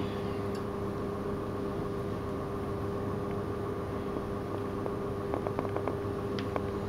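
Steady room hum with a faint hiss, and a quick run of faint ticks about five seconds in.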